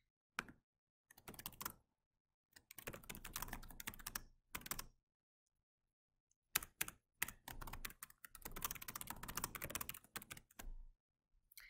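Typing on a computer keyboard in quick runs of keystrokes, with a pause of over a second about halfway through.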